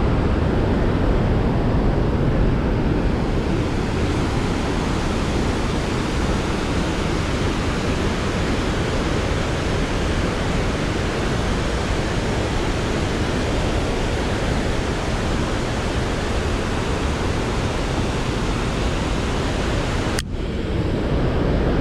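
Steady, dense rush of water from the Iguazu Falls, an even noise heavy in the low end. A single click sounds near the end.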